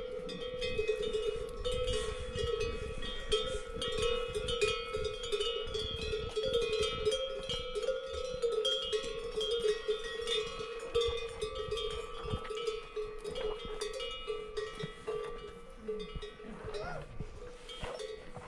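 Bell on a brass prayer wheel ringing over and over as the wheel is turned, struck many times in a row; the ringing thins out near the end.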